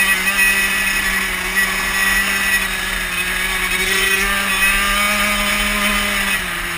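Dirt bike engine running under steady throttle while riding, its pitch climbing a little and then dropping near the end.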